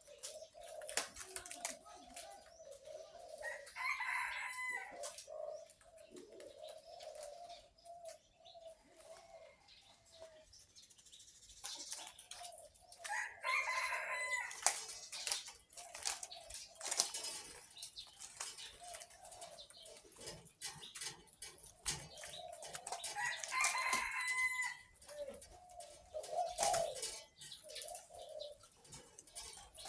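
Caged dove cooing in a low, wavering voice. Louder, higher calls come about every ten seconds, with bursts of rustling and clicking in between.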